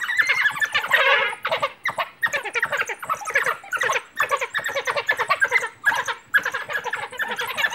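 A pack of African wild dogs twittering: many short, high-pitched squealing calls from several animals at once, with barely a pause between them, the excited chatter they give while mobbing prey.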